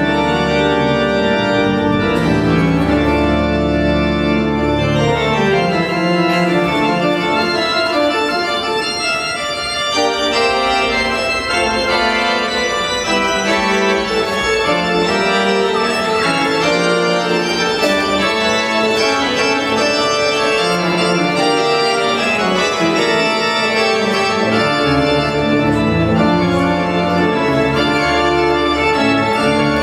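Church pipe organ playing sustained chords, with deep pedal bass notes at the start and again near the end.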